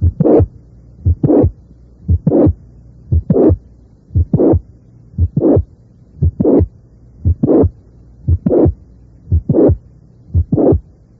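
Recorded heart sounds through a stethoscope at the apex in mitral regurgitation: a regular beat about once a second, each systole holding a mid-systolic click that leads into a high-pitched late systolic murmur.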